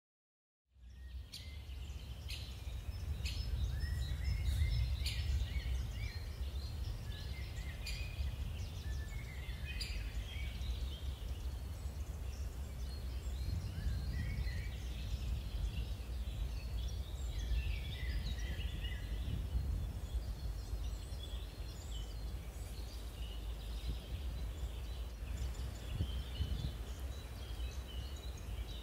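Small birds chirping and twittering over a steady low rumble, starting about a second in.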